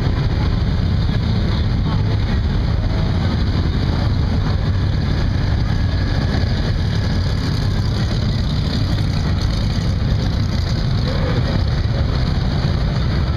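Off-road vehicle engine running steadily at low speed as a continuous low rumble, with faint voices in the background.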